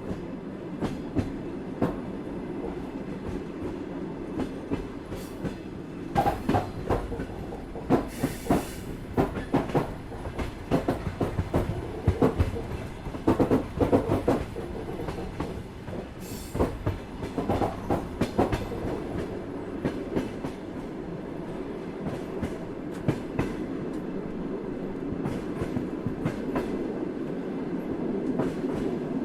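A moving train running along the track: a steady low rumble with the clickety-clack of wheels over rail joints. The clacks grow louder and come thick and fast through the middle stretch, with two brief hisses, then settle back to the even rumble.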